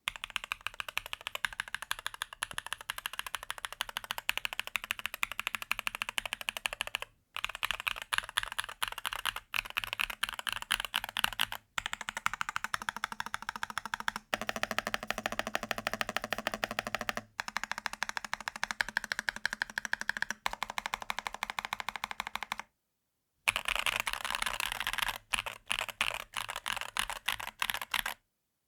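Fast continuous typing on a Rexus DAXA M61/M64 60% mechanical keyboard: rapid key clicks and clacks. The takes are cut together with short silent breaks between them.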